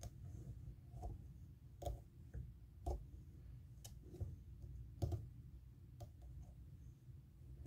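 Faint, irregular small clicks, roughly one a second, from fingers picking out and pulling back the hair fibres of a streamer fly held in a tying vise.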